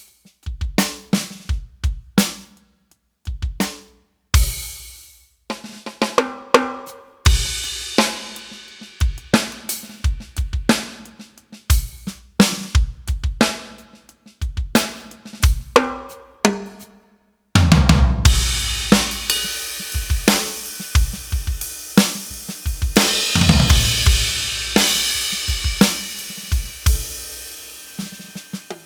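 Roland TD-50X electronic drum kit played through its sound module with a sampled acoustic kit: dry kick and snare, resonant toms and dark, trashy cymbals with a sizzler on the ride. Sparse single hits with short gaps give way after several seconds to a steady groove; it breaks off briefly about two-thirds in, then comes back in with a heavy cymbal wash.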